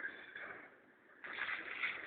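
Plastic grocery bags rustling as they are handled, with a short pause near the middle.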